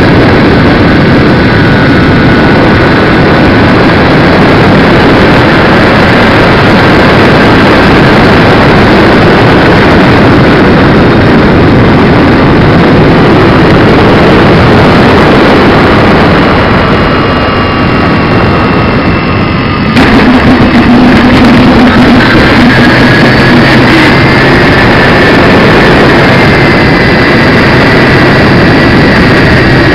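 Engines and propellers of a radio-controlled DC-6B model airliner heard from its on-board camera in flight: dense, loud running noise with several thin whining tones that drift in pitch. The sound eases off around 16 s in, then comes back suddenly and loud at about 20 s.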